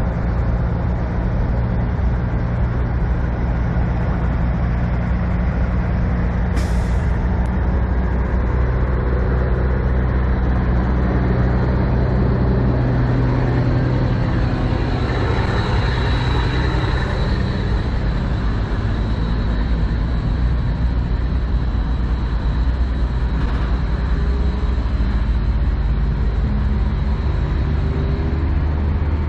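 Semi truck's diesel engine running steadily, with a short high hiss about seven seconds in.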